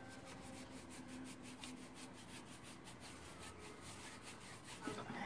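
Paintbrush scrubbing white gesso onto a drawing: faint, quick back-and-forth brush strokes, several a second.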